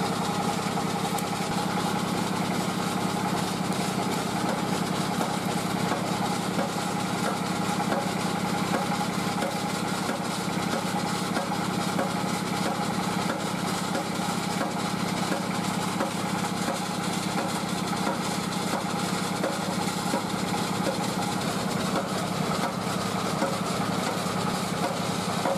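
A small engine idling steadily: a constant hum with a fast, even pulse that does not change.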